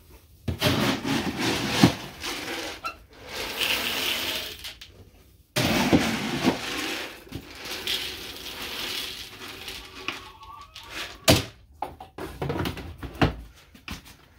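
Dry chicken feed being scooped from a plastic bin and poured into a plastic chicken feeder: several grainy rushing pours, with scrapes and a few sharp knocks of the plastic scoop against the bin and feeder near the end.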